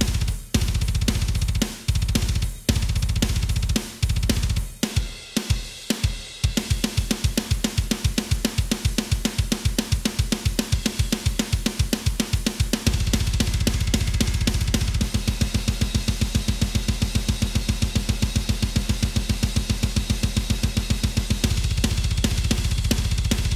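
Programmed metal drum kit (Superior Drummer with Metal Foundry samples) playing alone: a few seconds of stop-start accented hits with cymbals, then a fast, driving pattern of rapid kick drums under snare and cymbals.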